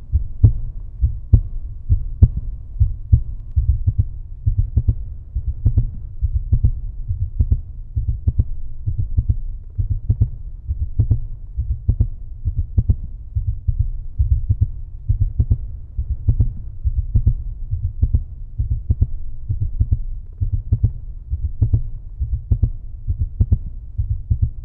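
Heartbeat, a steady low thump about once a second over a constant low hum.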